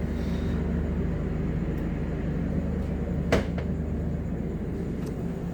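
Steady low mechanical hum from a stationary train, with a single sharp clank about three seconds in.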